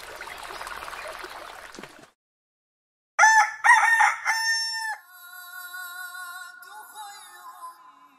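A rooster crowing once, loudly, in several pitched segments, about three seconds in. Before it comes a soft hissing shimmer, then a second's silence. After it come a few seconds of quieter steady electronic tones.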